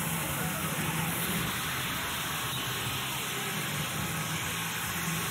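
Steady hubbub of an arena celebration: indistinct voices and shouts under an even rushing hiss, with no single loud event.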